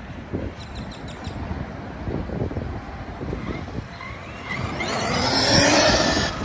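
Electric RC monster truck's 2000 kV motor whining up as the truck accelerates, the whine rising in pitch and growing loud before cutting off sharply near the end, over a low rumble of the truck running across the ground.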